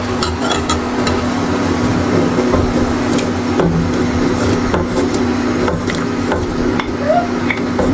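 Scraping and scattered light knocks as fresh bánh canh noodles are pushed off a plate into a pot of soup, over a steady hum.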